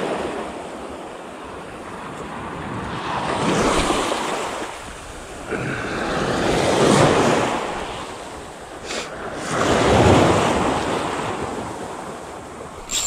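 Small waves breaking and washing up a sand-and-pebble beach, the surf swelling about every three seconds, with wind on the microphone. A brief click near the end.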